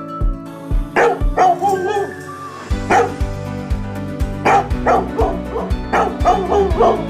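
A dog yipping and barking in short calls, several in a row after the middle, over background music with a steady beat.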